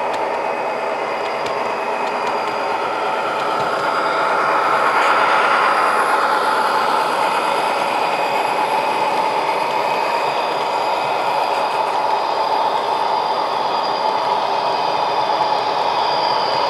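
Model freight train with diesel locomotives rolling past on the layout's track: a steady rumble of wheels on rails with a whine from the locomotive motors, a little louder about five seconds in as the lead units pass.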